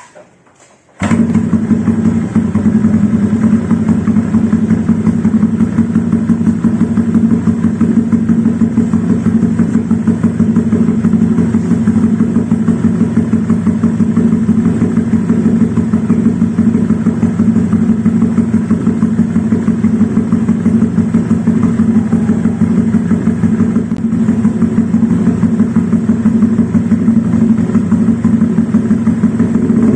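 Honda Vario 125 scooter's single-cylinder four-stroke engine idling through an ABF Racing GP D-Series slip-on silencer with a full baffle, a steady, rapid exhaust pulse. It comes in suddenly about a second in and stays even throughout.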